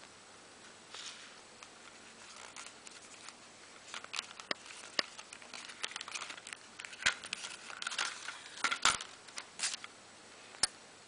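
A plastic Blu-ray case and its paper insert being handled: scattered clicks, taps and paper rustling, busier in the second half, with a couple of sharp plastic clicks near the end.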